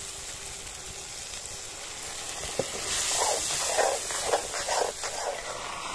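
Onions and ginger-garlic paste sizzling in hot oil in a kadai, with a steady hiss throughout. A metal ladle scrapes and stirs through them in a run of strokes from about halfway through.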